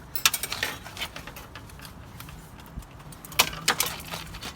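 Metal clinking and rattling as a wire hanger and the turbo blanket are worked around the turbocharger in the engine bay, with two sharper knocks about three and a half seconds in.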